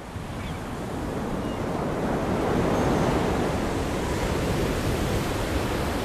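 Ocean surf washing onto a sandy beach, a steady rushing that swells in over the first two or three seconds.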